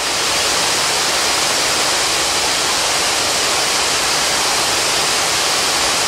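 Crabtree Falls, a tall waterfall cascading down a rock face, pouring in a loud, steady, hissing rush of water.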